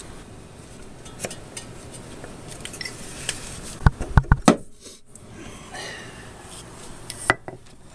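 Crankshaft pulley being wiggled off the crankshaft snout by hand: light scraping and small metal clicks, with a quick run of about four sharp metallic knocks about four seconds in and another single knock near the end.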